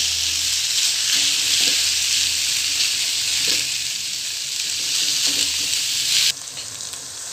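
Boiled mash daal (split urad lentils) frying in a masala of oil, onion, tomato and capsicum in a karahi, sizzling steadily while it is stirred with a silicone spatula. The sizzle cuts off suddenly near the end.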